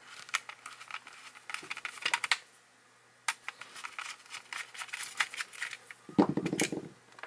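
Screwdriver backing a small screw out of the circuit board of a plastic-cased power meter: rapid small clicks and ticks of the bit and screw, pausing briefly about two and a half seconds in. A short pitched sound comes about six seconds in.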